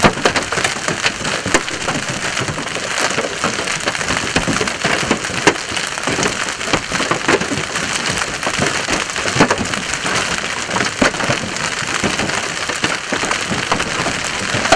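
Large hail, golf-ball to tennis-ball size, falling hard: a steady hiss studded with many sharp knocks of hailstones striking the pavement and vehicles.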